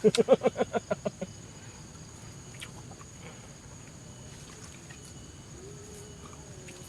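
A person laughing in quick, fading pulses for about a second, then quiet outdoor ambience with a steady high-pitched insect drone, like crickets.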